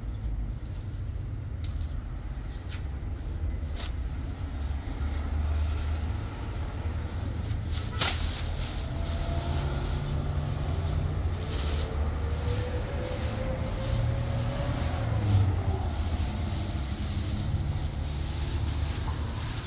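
Thin black plastic bag rustling and crinkling as it is shaken open and worked over a bundle of bare-root saplings, with a sharp click about eight seconds in, over a steady low rumble.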